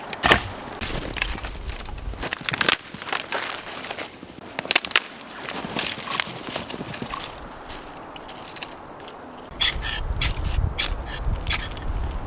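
Irregular sharp snaps and crunches of dry sticks and twigs being broken and handled while kindling is gathered for a fire. A low rumble comes in about three quarters of the way through.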